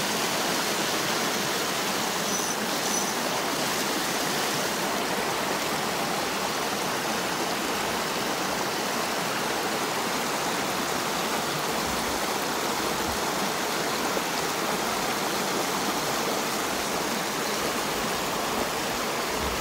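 Steady rush of a small rocky mountain stream, water pouring through a shallow riffle over stones.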